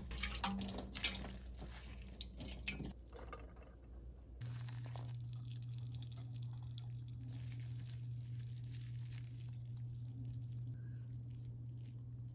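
Hands swishing and rinsing chwinamul greens in a metal bowl of water, with splashing and dripping for about the first four seconds. Then it turns quiet: a low steady hum with faint drips as the blanched greens are squeezed out by hand.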